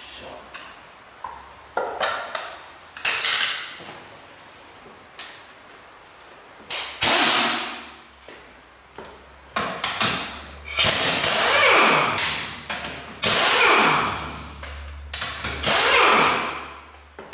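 Pneumatic impact wrench run in bursts of a second or two, undoing the bolts on a wheel, several bursts with a whine that falls in pitch as they wind down. Before it, short metal clinks of the socket and tools being handled.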